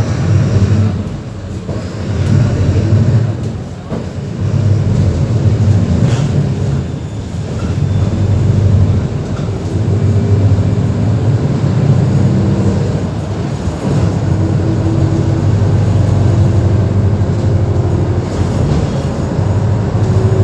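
Mercedes-Benz OF-1721 BlueTec 5 bus diesel engine running, revving up and easing off several times in the first half, then holding a steadier drone.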